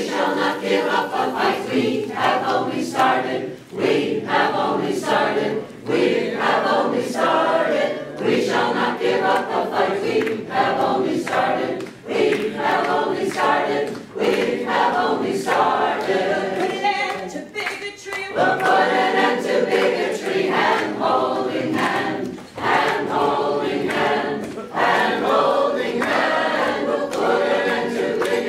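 Mixed chorus of men's and women's voices singing a song together a cappella, in phrases of about two seconds.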